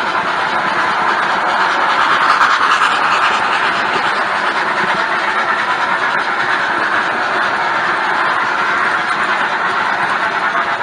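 HO-scale model train cars rolling along the track: a steady rattle and rumble of small wheels on the rails, picked up by a camera riding on the train.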